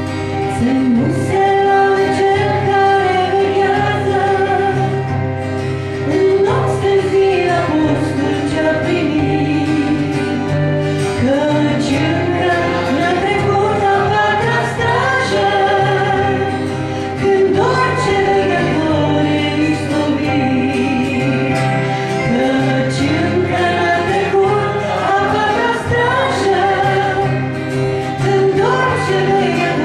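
Live Christian song in Romanian: a woman singing a gliding melody, accompanied by acoustic guitar and keyboard.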